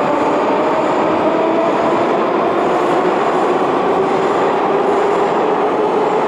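Moscow Metro train running on the rails in an underground station: a steady rumble of wheels on track with whining tones over it, one of them sinking slightly in pitch partway through.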